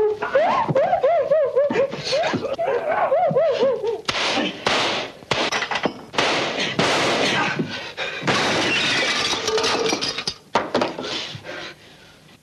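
Film sound effects: a warbling pitched sound for the first few seconds, then a long run of crashes and things breaking and shattering, like a scuffle smashing objects, that thins out and fades near the end.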